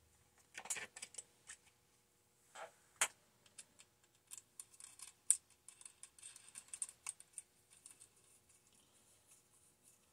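Irregular light plastic clicks and taps as a yellow cylindrical air filter is handled and seated by hand onto a chainsaw's intake during assembly.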